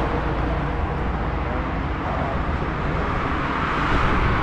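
Steady road traffic noise from a wide multi-lane road, swelling slightly near the end as a car approaches.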